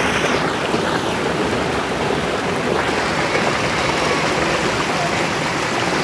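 Steady rush of flowing water from a muddy drainage channel.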